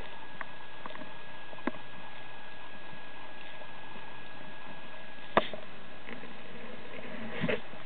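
Underwater ambience picked up through a camera's waterproof housing: a steady hiss with a faint steady tone, broken by a few sharp clicks, the loudest about five seconds in, and a short cluster of knocks near the end.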